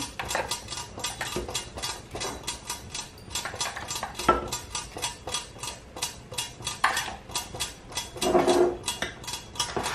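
A utensil scraping and tapping chopped onions out of a plastic food chopper bowl into a glass bowl: a steady run of small clicks and clinks, with a few louder knocks.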